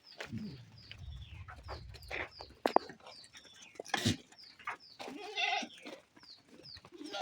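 A goat bleats once, a wavering call about five seconds in, over small birds chirping repeatedly in short high falling notes. There are a few sharp knocks.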